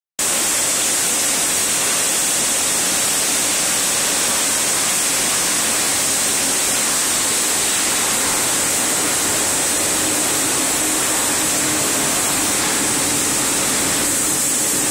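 Woodtech MB 1400 R4 rotation brush sanding machine running: a loud, steady hiss with a bright high edge from its spinning brush heads.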